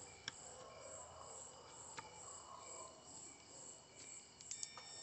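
Near silence with faint, even chirping in the background, pulsing regularly like insects, and a few light clicks.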